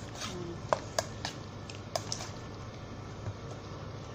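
Stainless steel mixing bowl being handled and tilted on the counter, giving several sharp clinks and knocks in the first couple of seconds over a steady low hum.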